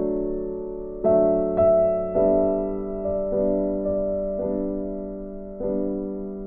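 Background piano music: slow notes and chords, each struck and left to fade, about one a second.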